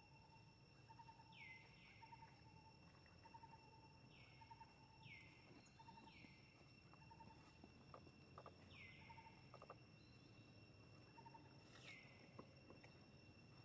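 Faint forest ambience: insects hold steady high-pitched tones while a soft chirp repeats about every three-quarters of a second. A bird gives about six short calls that slide downward in pitch, spread through the stretch.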